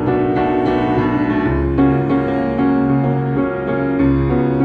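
Solo grand piano playing an improvised jazz piece: chords held in the middle register, with low bass notes coming in underneath about a second and a half in.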